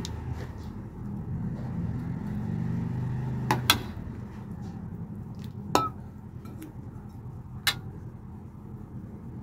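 Metal spatula clinking against a pan of thick curry while it is stirred: a quick double clink, then two more single clinks a couple of seconds apart, over a steady low hum that fades partway through.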